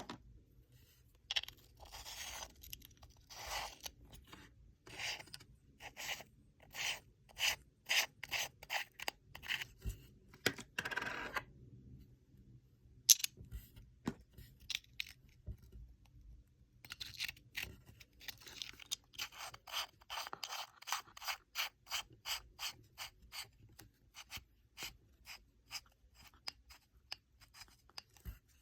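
Hands handling a small red dot sight and its packaging: rubbing and scraping mixed with a long run of short sharp clicks, at times about two a second. One louder click comes about 13 seconds in.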